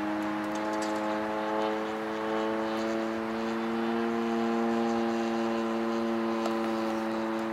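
Zenoah ZG62 single-cylinder two-stroke petrol engine of a giant-scale RC Corsair running steadily in flight, heard from the ground as an even buzzing drone with a nearly constant pitch.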